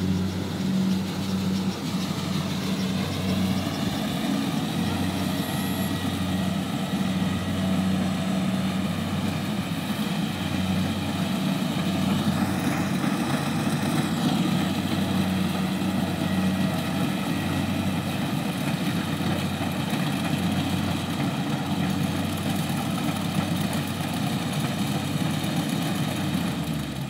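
Kubota DC70 combine harvester's diesel engine running steadily as the machine cuts rice, a constant hum with a brief rising-and-falling whine about halfway through.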